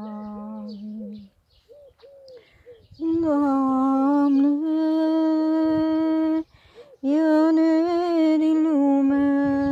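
A woman humming the hymn's melody without words: a held note that stops about a second in, then after a short pause two long hummed phrases on a higher, steady note.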